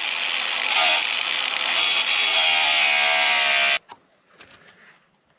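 Power tool cutting through a metal pipe strap: a loud, shrill whine at a steady pitch that dips briefly about a second in and stops abruptly near four seconds in.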